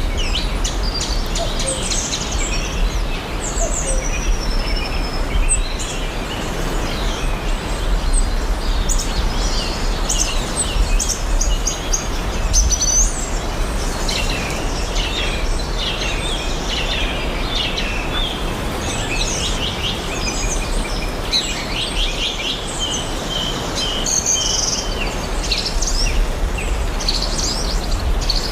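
Several small birds chirping and trilling over a steady background hiss.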